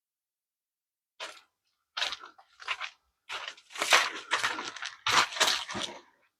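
Crunching and rustling of dry vegetation in a run of irregular bursts, growing louder and closer together through the second half.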